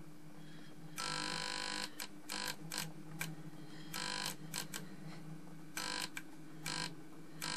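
A 20 W fluorescent tube being driven to failure: a steady low electrical hum, broken again and again by harsh buzzing bursts, the longest about a second in, as the tube flickers between striking and only its filament glowing.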